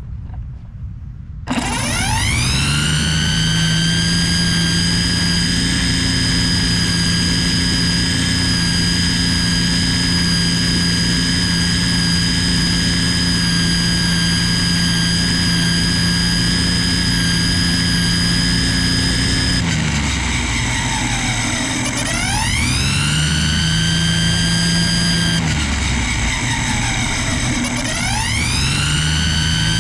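Ryobi string trimmer spinning up sharply after a quieter opening second or so, then running at a steady high whine while cutting grass. It slows and speeds back up twice, about two-thirds of the way through and again near the end.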